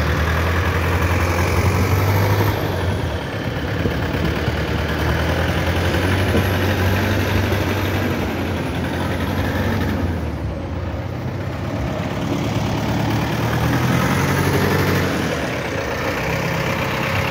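Heavy engines running with a steady low hum, under a general wash of traffic noise.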